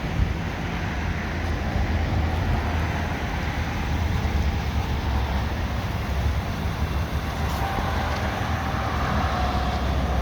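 Steady low hum of an idling police patrol car, over a haze of outdoor traffic noise.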